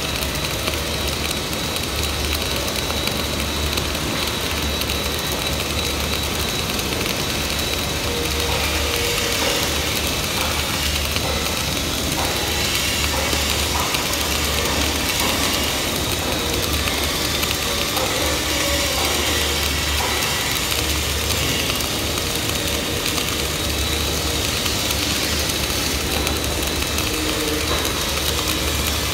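Flux-cored arc welding at about 24 volts and 200 amps: the arc burning continuously with a steady crackling hiss. Under it, a low hum comes and goes every few seconds.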